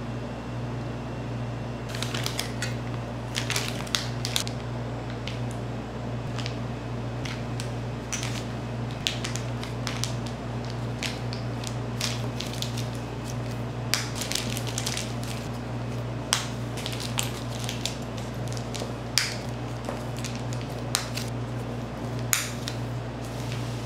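A steady low hum with scattered light clicks and crackles of small handling noises over it, a few sharper ones standing out.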